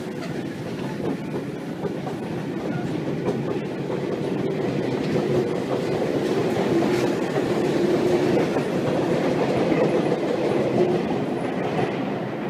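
Electric commuter train pulling out of the station, its cars rolling past with a steady hum and rhythmic wheel clatter, growing louder and then easing off near the end as the last car clears the platform.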